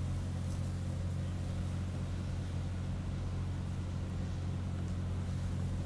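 Steady low background hum or rumble with no speech, with a couple of faint light clicks over it.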